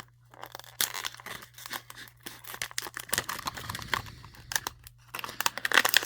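A dull stainless-steel folding knife sawing and tearing at material, with irregular scraping, ripping and crinkling. The blade is not sharp and does not cut cleanly.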